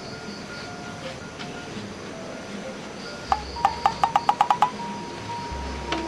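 Soft background music of sparse single notes. A little past halfway comes a quick run of about eight sharp plinks, roughly six a second, that ends in a held ringing note.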